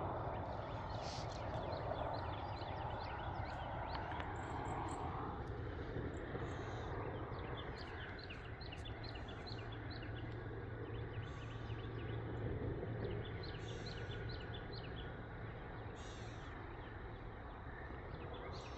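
Morning chorus of small birds chirping, many short repeated calls, over a steady low hum.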